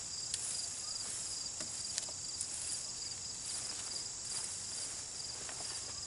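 Steady high-pitched chorus of insects trilling, with a pulsing chirp running through it, and a few faint clicks.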